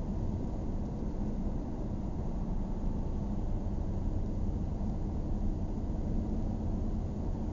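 A car driving at a steady speed, heard from inside the cabin: a steady low rumble of road noise.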